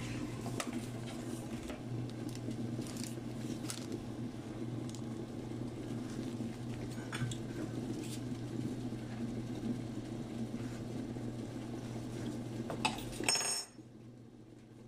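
Light clinks and knocks of a utensil and an enamelled cast-iron pot lid over a steady low hum, with a louder metallic clank that rings briefly as the lid comes off the pot near the end; the hum then cuts off.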